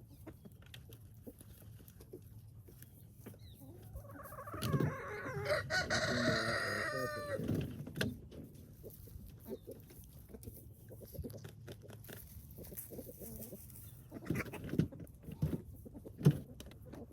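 A rooster crowing once, a long call beginning about four seconds in, with chickens clucking around it. A few short knocks come near the end.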